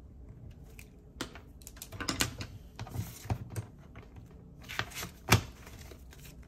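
Paper bills and a paper budget slip handled on a wooden tabletop: short bursts of rustling and crinkling with scattered light taps and clicks, the sharpest click about five seconds in.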